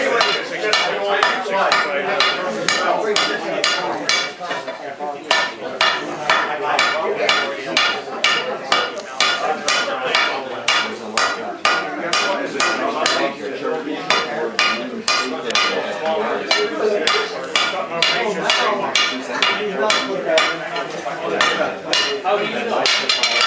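Blacksmith's hand hammer striking metal on an anvil in a steady run of ringing blows, about two to three a second, as a mortise and tenon joint is forged.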